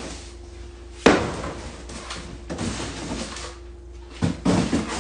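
A sharp bang about a second in, then two quicker knocks near the end, like a door or cupboard being shut.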